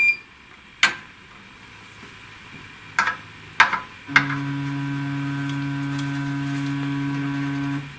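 A few sharp clicks, then the laser cutter's X-axis stepper motor running at a steady pitch for nearly four seconds, driving the carriage along its belt while the machine homes in search of its zero, before it stops just short of the end.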